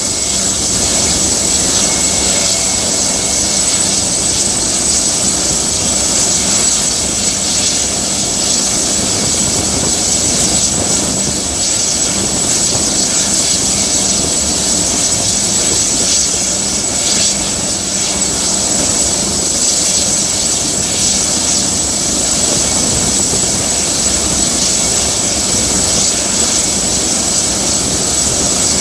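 Helicopter running steadily: engine and rotor noise with a steady high whine over it.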